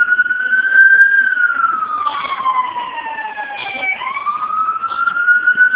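Emergency vehicle siren wailing loudly: the pitch rises over about a second, falls slowly over about three seconds, then rises again about four seconds in.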